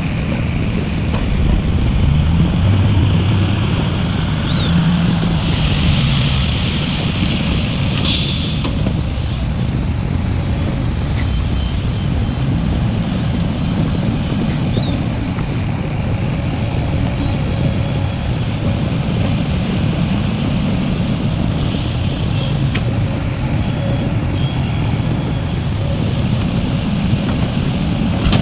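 Heavy diesel mining machinery, an excavator and dump trucks, running steadily, the engine pitch rising and falling slowly as the machines work. A hiss comes in about a fifth of the way through and ends with a short sharp burst about a third of the way in.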